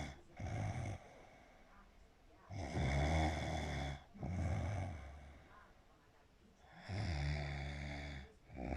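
Snoring in a slow, even rhythm: two long snores about four seconds apart, each followed at once by a shorter breath.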